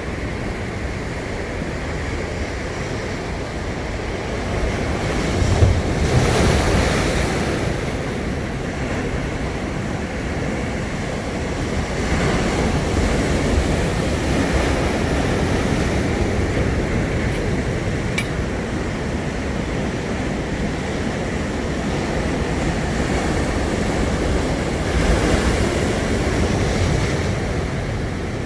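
Sea waves breaking and washing on the shore in a steady rush, swelling louder as bigger waves break about six seconds in, again around twelve seconds, and near the end.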